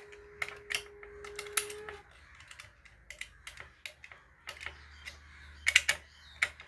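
Irregular light clicks and taps of small screws and nuts being fitted as a transformer is fastened into the box. A steady tone sounds underneath and stops about two seconds in.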